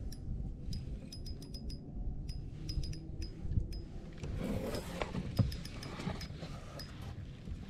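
Handling sounds in a kayak: rustling and light clinks of fishing gear, with one sharp knock about five seconds in, over a low wind rumble. Short, high chirps repeat on and off.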